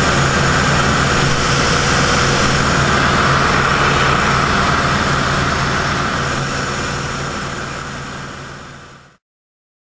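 Grumman F8F Bearcat's 18-cylinder Pratt & Whitney R-2800 radial engine and propeller droning steadily in flight with wind rush, heard from inside the cockpit. The sound fades out over the last few seconds and goes silent about nine seconds in.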